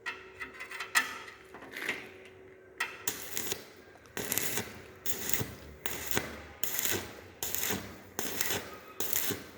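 A few light clinks, then rhythmic scraping strokes starting about three seconds in, about two a second.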